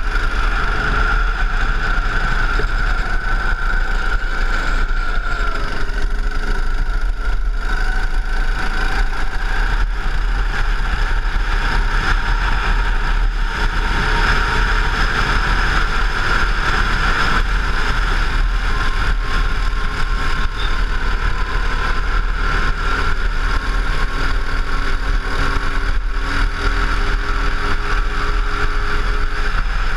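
Go-kart engine running at racing speed, heard from on board, its note rising and falling as the kart accelerates down the straights and slows for corners.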